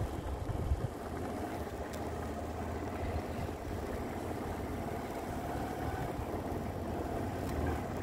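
Motorcycle engine running at a steady, low, even speed.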